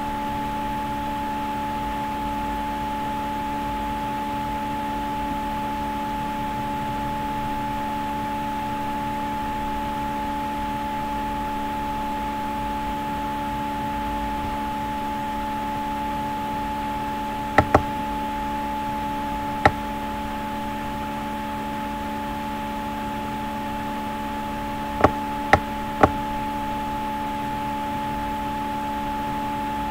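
Steady hum of a few constant tones over a hiss, broken by sharp computer-mouse clicks: a double click a little past halfway, a single click about two seconds later, and three clicks about half a second apart near the end.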